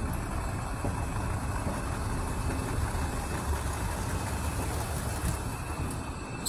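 Steady low mechanical rumble and hum of an airport terminal hall, from ventilation and a moving walkway, with a faint high whine over it and a light click right at the end.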